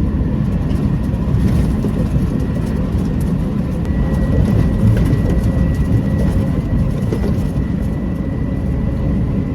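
Concrete mixer truck heard from inside the cab while driving: a steady, loud, low engine and road rumble. A faint thin high whine joins about four seconds in.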